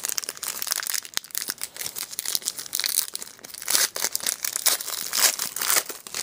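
Hockey card pack wrapper crinkling and tearing as the pack is opened by hand, in a rapid run of crackles.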